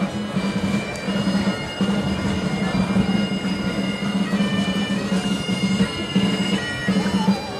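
Bagpipes playing a tune, the melody notes shifting above a strong low sustained tone.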